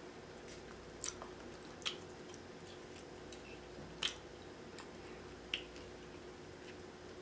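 Close-up eating sounds of snow crab: a few short, sharp wet clicks and snaps, spaced a second or more apart, as the crab shell is picked apart by hand and the meat chewed.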